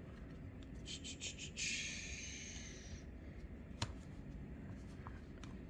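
Plastic wrapper of a trading-card pack crinkling a few times, then a papery hiss of about a second and a half as it is torn open, followed by a single sharp click.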